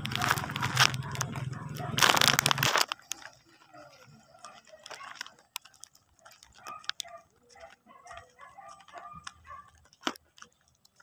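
Wind rumble and handling noise on a phone's microphone while the camera moves, for about the first three seconds, then much quieter open-air background with faint scattered short sounds and clicks.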